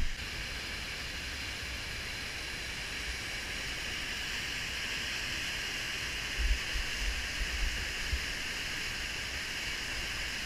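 Steady rush of churning whitewater in a river rapid. A few brief low bumps come about six to eight seconds in.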